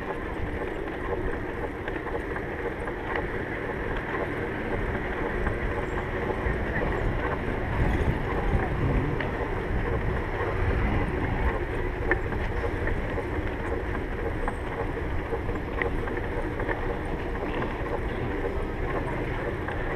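Steady wind rumble on a bicycle-mounted GoPro's microphone while riding along a paved bike path, heavier and lower about eight to twelve seconds in.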